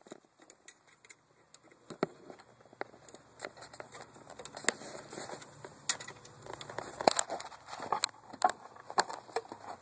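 Irregular clicks, taps and rustles of a mower's control cable being handled and fed up through the handlebar into its mounting hole, with the clicks coming thicker in the second half.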